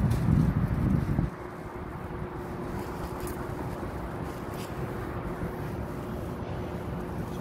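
Street traffic noise with wind on the phone's microphone: a loud low rumble for about the first second, then a steady even hiss.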